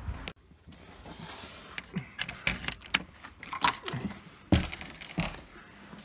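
Keys jangling, with a handful of sharp clicks and knocks spread over a few seconds.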